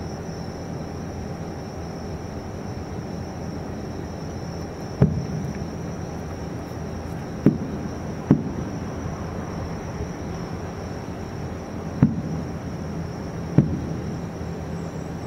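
Distant aerial firework shells bursting: five dull booms, one to four seconds apart, over a steady background hiss.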